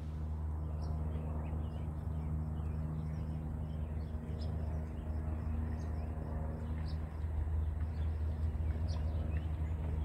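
Birds chirping here and there in short, scattered calls over a steady low drone.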